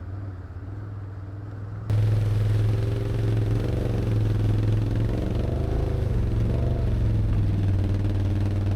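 Can-Am Outlander ATV's V-twin engine running at low speed, its pitch wavering a little as it is throttled over rocks. About two seconds in it suddenly becomes much louder, with a hiss on top.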